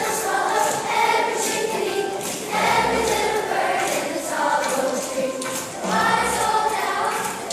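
Fifth-grade children's choir singing, the voices moving together in phrases with short pauses between them.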